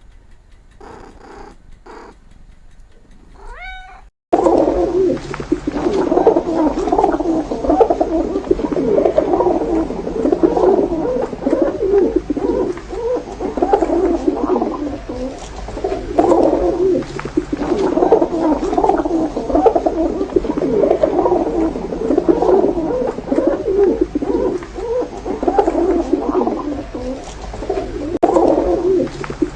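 Faint gliding cat meows for about four seconds, then after an abrupt cut a loud, dense, continuous clamour of animal calls that surges and eases every second or two.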